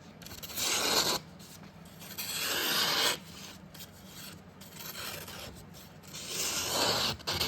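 Knife blade slicing through paper in three rasping cuts, each about a second long, with a fainter pass in between. The steel is the TKell Piranha's 80CrV2 blade, and it cuts cleanly enough to be called sharp.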